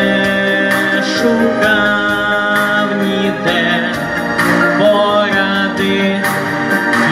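A young male singer holding long, wavering notes into a microphone over an instrumental backing track with a steady beat.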